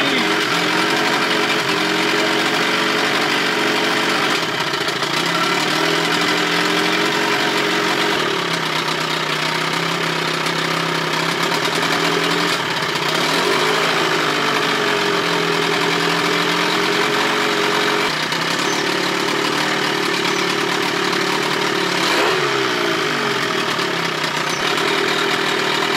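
2000 Johnson 25 hp two-stroke outboard running in a test barrel, its speed dipping and picking up again several times while it is being dialed in. It sneezes off and on, a sign of a lean mixture, and is proving difficult to dial in.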